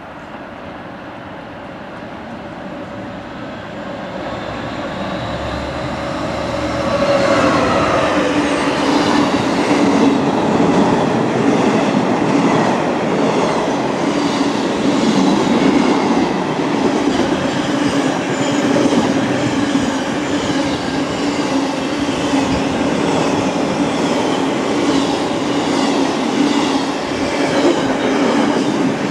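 A Class 66 diesel locomotive's engine grows louder as it approaches and passes over about the first seven seconds. After that comes the steady run of loaded container wagons rolling past, with a regular clatter of wheels over the rail joints.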